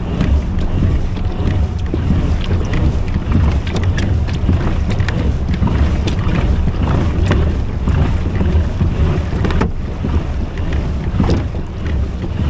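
Wind buffeting the microphone out on open water, a heavy steady rumble, with scattered small clicks and knocks over it.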